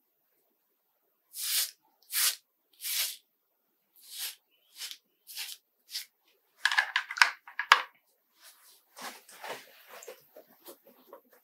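Razor scraping across a lathered scalp in short strokes, three strokes about a second apart and then several more. About seven seconds in there is a louder quick cluster of clicks and scrapes, followed by softer rustling of clothing near the end.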